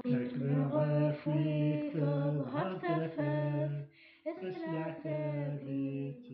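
A Kabyle folk song: a voice singing held melodic notes, with a short break about four seconds in and a softer close near the end.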